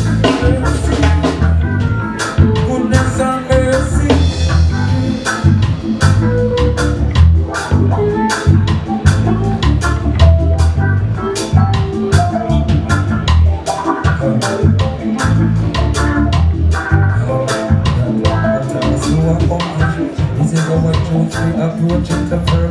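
Live reggae band playing, with a heavy bass line, a drum kit keeping a steady beat, guitars and keyboard.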